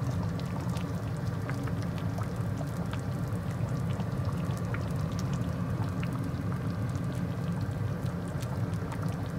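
Thick okra soup bubbling steadily in a full pot on the hob, with many small irregular pops and plops.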